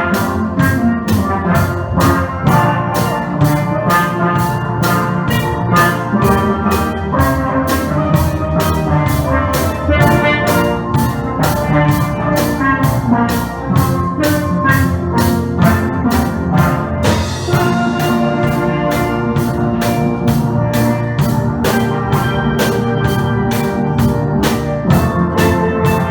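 Steel pan band playing a lively tune, the pans' ringing notes over a steady percussion beat of about two strokes a second. A brief splash of cymbal-like noise comes about two-thirds of the way through.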